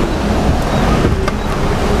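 Jeep driving on a rough dirt road: steady engine and road noise, with a few brief rattles about a second in and wind buffeting the microphone.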